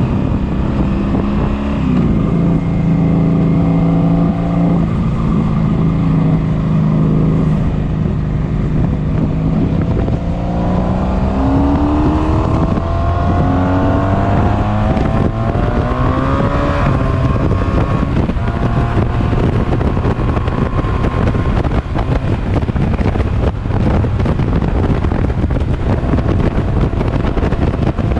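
1983 Honda Sabre 750's V4 engine running at highway speed, being revved out to clear carbon. The engine note holds steady, then climbs in pitch for several seconds as the bike accelerates. After that it is largely buried by wind buffeting the microphone.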